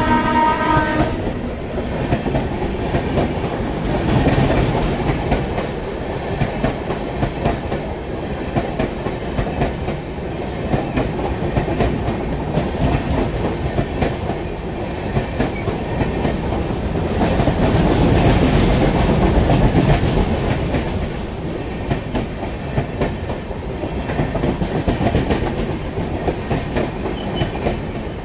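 Duronto Express train passing at speed, its wheels clattering over the rail joints in a steady clickety-clack. The electric locomotive's horn cuts off about a second in.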